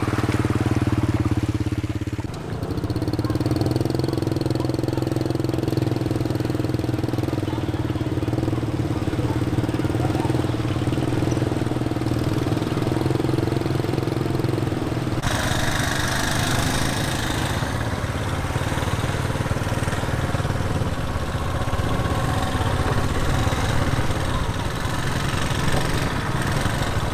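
Small step-through motorbike engines running steadily at low riding speed. The sound changes abruptly about 2 seconds in and again about 15 seconds in.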